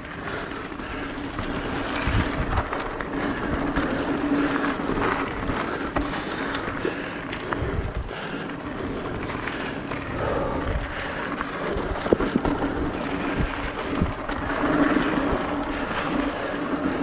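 Mountain bike rolling fast over dirt singletrack: knobby tyres on packed dirt and leaves with a steady hum, and the bike rattling with short knocks over bumps. Wind rushes over the microphone throughout.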